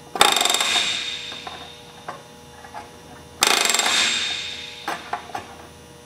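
Pneumatic rivet gun with a flush set driving flush rivets into aluminium sheet against a steel bucking bar: two rattling bursts of about a second each, with a few small metal clicks between.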